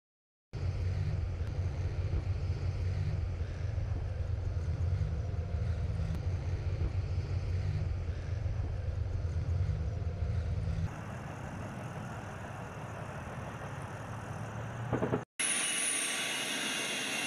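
Armoured military vehicles driving in a column: a heavy engine and track rumble with a fast, even low pulsing. About two-thirds through it gives way to a thinner, hissier vehicle sound. After a brief cut near the end comes a different engine sound with a high whine that dips and rises.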